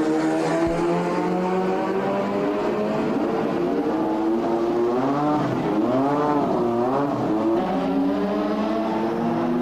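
Formula One racing car engine at high revs, its note climbing steadily. About halfway it swings quickly up and down a few times, then drops and climbs again.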